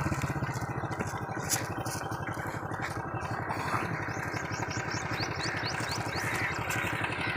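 An engine runs steadily with an even, rapid pulse. Midway a bird gives a quick series of about seven short rising chirps.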